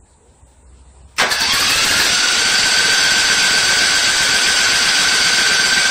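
Newly fitted V-twin engine on a riding mower catches suddenly about a second in and runs fast and steady, loud, with a steady high tone over the engine noise.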